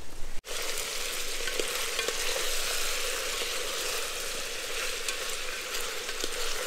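Chicken sizzling as it fries: a steady sizzle with occasional small crackles, starting about half a second in.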